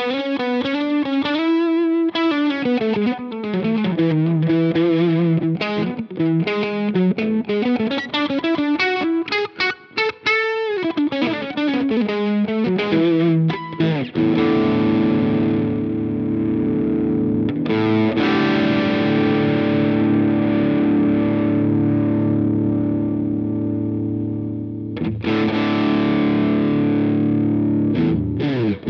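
Overdriven guitar played through a Jeds Peds Wasteman overdrive pedal, a boosted Tubescreamer-style circuit with a clean blend. It starts with a single-note riff, then about halfway through switches to held, distorted chords that ring out and are struck again near the end.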